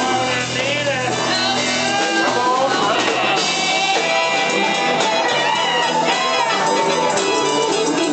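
Blues-rock band playing live: electric guitars over drums, with slide-guitar notes gliding up and down over a low held bass note that changes about two seconds in.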